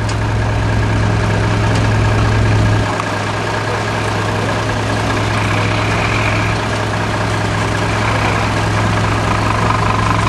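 Scania fire engine's diesel engine running close by and idling, a steady low hum whose deepest rumble eases a little about three seconds in.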